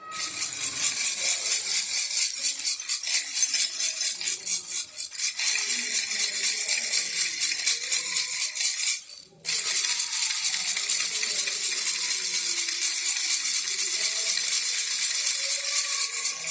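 Baby rattle shaken continuously in a fast, dense rattle, with a brief break about nine seconds in.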